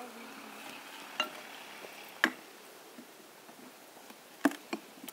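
Separate hard blows of a long-handled striking tool on a large chainsawn oak log, working the split open. One comes about a second in and another at about two seconds, and three follow close together near the end. The first ones ring briefly like metal.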